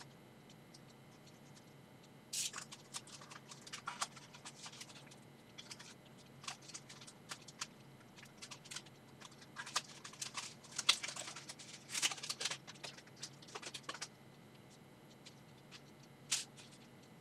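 A Nerf Elite 2.0 Sly Shot blaster and its packaging being handled while it is unboxed: scattered scratching, rustling and small plastic clicks, busiest from about two to fourteen seconds in, with one more short click near the end.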